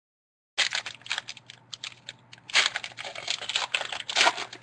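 Trading cards being flipped through and handled: a quick run of clicks and rustles of card stock, starting after a moment of dead silence and loudest about two and a half and four seconds in.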